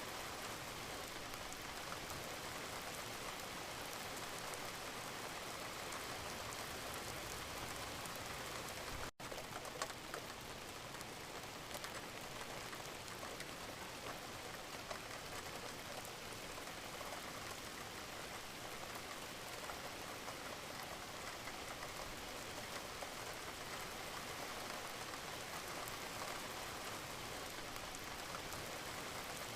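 Steady rain with a dense patter of individual drops. The sound cuts out for an instant about nine seconds in.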